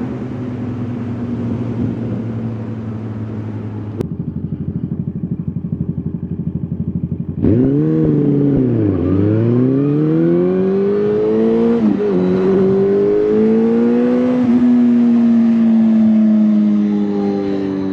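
Motorcycle engine running steadily, then pulling away and accelerating, its pitch climbing and dropping back twice as it shifts up through the gears. Abrupt edits change the sound twice in the first half.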